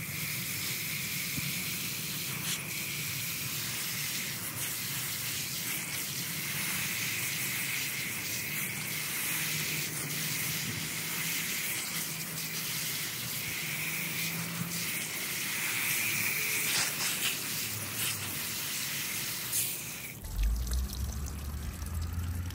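Steady hiss of water from a garden hose spray nozzle beating on a plant's root ball and a glass table top, washing potting soil off the roots. The spray cuts off about twenty seconds in.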